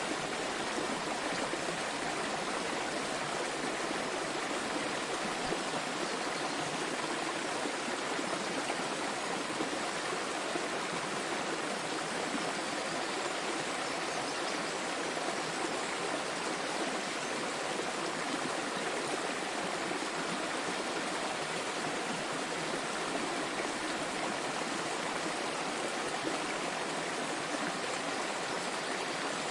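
Small waterfall with water splashing and flowing in a steady, even rush.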